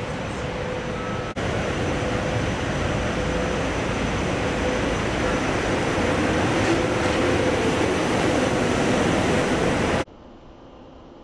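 SEPTA Silverliner IV electric commuter train pulling into an underground station, its cars rolling past close by with a steady rumble and a steady mid-pitched tone over it. About ten seconds in the sound drops abruptly to a much quieter station hum.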